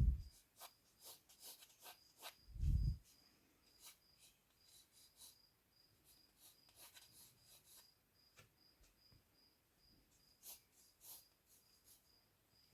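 A cricket chirping steadily, about two to three high chirps a second, over faint scratchy pencil strokes on paper. There is one low thump about two and a half seconds in.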